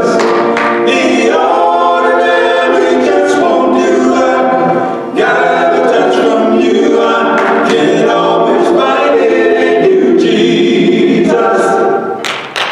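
Male vocal quartet singing a cappella gospel harmony into handheld microphones, holding long close-voiced chords. The singing breaks briefly about five seconds in and the phrase ends near the end.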